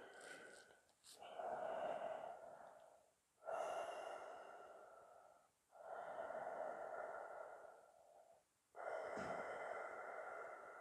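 A yoga practitioner's slow, audible breathing while holding a seated forward bend: four long, faint breaths of about two seconds each, separated by short pauses.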